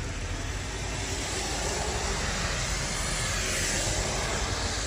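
Steady hiss of a passing car's tyres on a rain-soaked road, growing gently louder.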